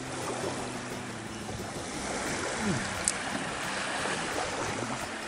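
Small waves washing onto a sandy beach, a steady surf hiss with some wind, and one short sharp click about three seconds in.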